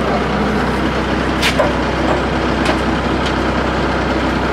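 Skid-steer loader engine running steadily, with a few sharp knocks about one and a half, two and a half and three seconds in.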